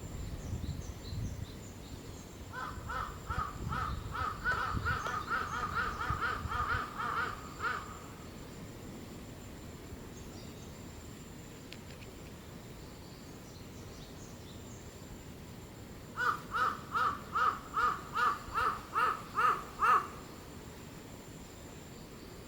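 A bird calling outdoors in two rapid series of short, evenly repeated calls, about three a second: the first lasts about five seconds, the second starts about two-thirds of the way in and lasts about four seconds.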